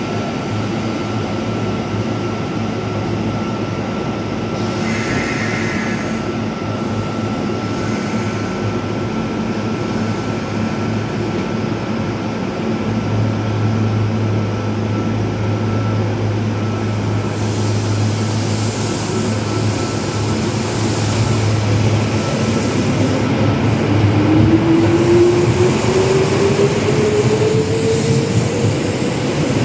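Kintetsu express electric train at a station platform: a steady low hum while it stands. Then, from about three-quarters of the way in, a motor whine rises in pitch as the train gathers speed past the platform.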